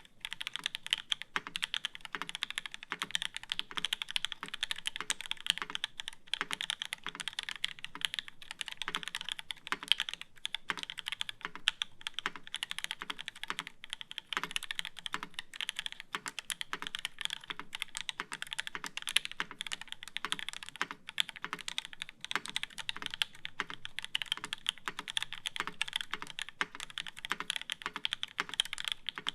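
Continuous fast typing on a UTD 360c mechanical keyboard with lubed H1 switches in an aluminium plate and GMK keycaps: a dense, steady stream of keystrokes, each a sharp click with a low thud beneath it.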